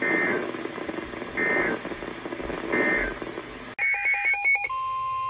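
Three short bursts of EAS (SAME) end-of-message data tones, about 1.3 s apart, over the hiss of a weather radio receiver. They mark the end of the broadcast alert. Near the end a click cuts to clean electronic tones: a quick run of stepping beeps, then a steady high tone.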